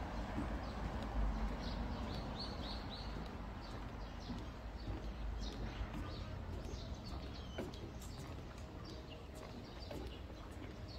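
Small birds chirping repeatedly in short, quick notes over a steady low background rumble.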